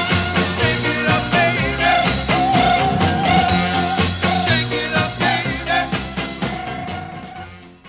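Oldies rock and roll record playing: an instrumental passage with a steady beat and wavering held notes, fading out near the end.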